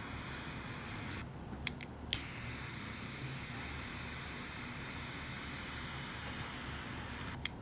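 Butane torch lighter hissing steadily while it heats a solder-seal heat-shrink connector to melt its solder band. About a second in the hiss breaks off briefly, with two sharp clicks before it resumes, and there is one more click near the end.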